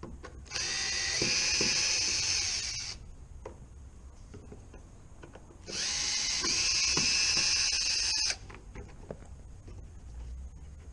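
Cordless drill-driver run twice in reverse to back out a Phillips-head screw; each run lasts two to three seconds, whines up to speed and stops suddenly.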